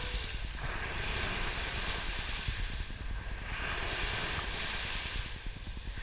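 Surf breaking on a sandy beach, the foam rushing up the sand in surges every second or two, with wind rumbling on the microphone.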